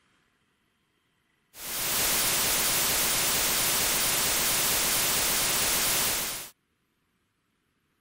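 White noise generated from the digits of Euler's number e: a 20,000-digit segment of about 454 ms, looped seamlessly over and over. It comes in about one and a half seconds in, holds steady for about five seconds, then stops abruptly.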